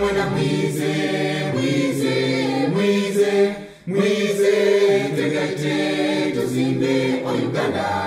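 A choir singing in harmony, with voices holding long notes together and a short break just before the middle.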